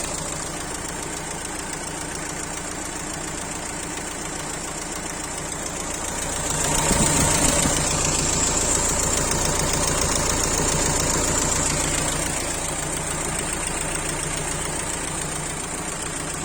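Renault Laguna 1.9 dCi four-cylinder turbodiesel engine running with a knocking, noisy sound that the owner puts down to the intake. It picks up and grows louder about six and a half seconds in, holds, then eases back down around twelve seconds.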